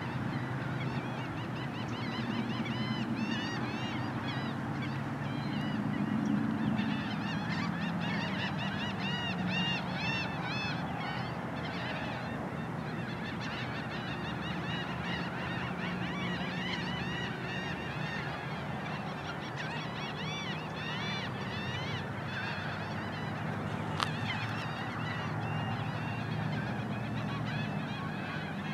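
A large flock of birds calling continuously, many short overlapping honks and chatter, over a steady low hum. A single sharp click about three-quarters of the way through.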